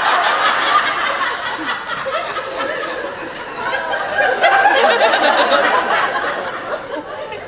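Large audience laughing and cheering, the laughter dipping and then swelling again about four seconds in.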